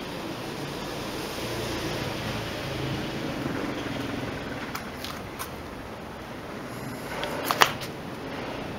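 Steady background noise with a few light clicks and one sharper click near the end.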